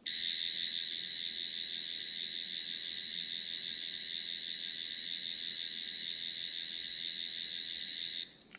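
Eleventh Doctor sonic screwdriver toy running its electronic sound effect: a steady high warbling buzz that starts sharply and cuts off about eight seconds in.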